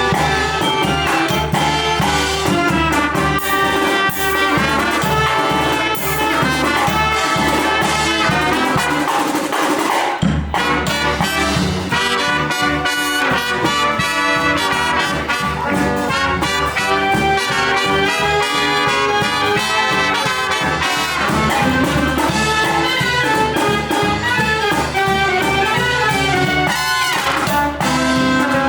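Live brass band playing, with trumpets and trombones to the fore. The music drops out briefly about ten seconds in, and the whole band comes back in together.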